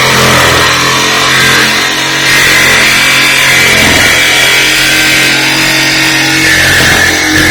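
TackLife corded jigsaw running at speed, its reciprocating blade cutting into the sheet-steel lid of a 55-gallon drum; loud and steady.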